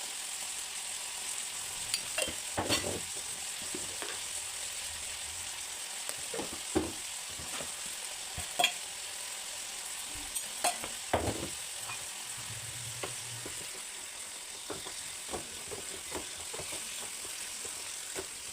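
Cauliflower-stalk sabzi sizzling in a pan while a spatula stirs it, with a steady hiss and a sharp scrape or clack of the spatula against the pan every second or two.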